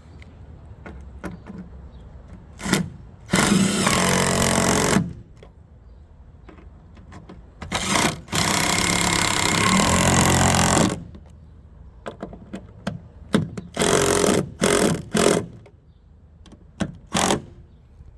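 Drill with a socket bit driving roof-rail screws: two long runs of the motor, about a second and a half and then about three seconds, then several short pulses of tightening, with light clicks of handling in between.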